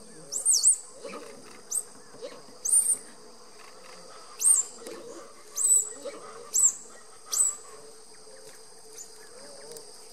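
A steady high drone of insects, with about eight short, sharp, high-pitched chirping calls scattered through the first seven and a half seconds and only faint ones after.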